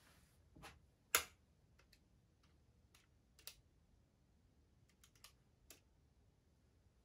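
Scattered light clicks and taps at irregular intervals, the sharpest one a little over a second in and another at about three and a half seconds, over near silence.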